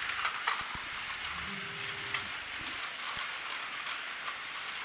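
Many battery-powered Takara Tomy Plarail toy trains running at once on plastic track: a steady rattling hiss of small motors and wheels, with scattered clicks.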